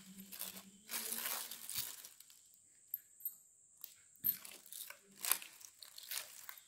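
Thin polythene bag crinkling and rustling as it is stretched and pressed over the mouth of a steel tumbler. The rustling is dense for about the first two seconds, then turns into scattered crackles with a few sharp taps.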